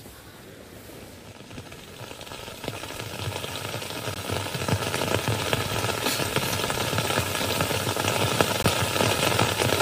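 A 'footsteps on wet grass' sound effect: dense, irregular rustling and crackling steps that grow steadily louder, like someone approaching.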